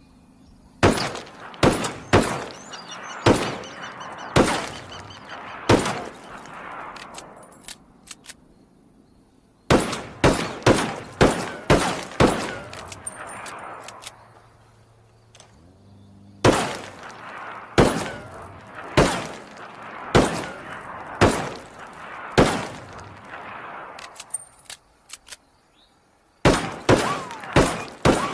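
Colt Navy cap-and-ball revolver firing in four strings of about six shots each, each shot a sharp crack with a ringing tail, with pauses of a few seconds between strings.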